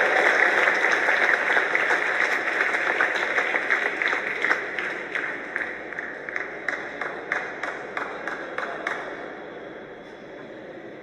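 Spectators applauding a point just won in a table tennis match. The applause starts as dense clapping, thins to scattered single claps, and dies away about nine seconds in.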